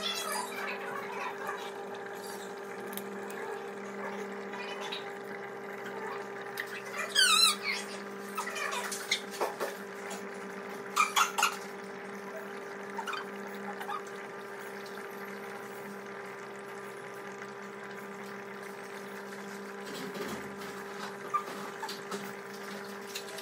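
Aquarium filter running: water trickling and bubbling over a steady low hum. About seven seconds in, a brief burst of high chirps; a few sharp clicks follow a few seconds later.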